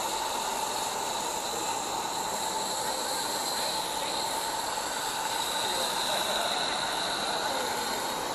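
Large-scale live-steam model Shay-type geared locomotive running along the track. It gives a steady hiss together with the running noise of its wheels and gearing, with no distinct chuffing beat.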